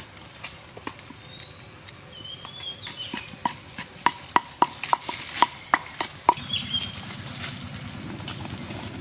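Small birds chirping, with a run of about nine sharp knocks, roughly three a second, in the middle.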